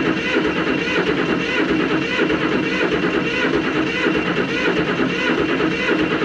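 Electric starter cranking an air-cooled Deutz diesel excavator engine steadily, with a repeating beat of about two a second; the engine has not yet caught.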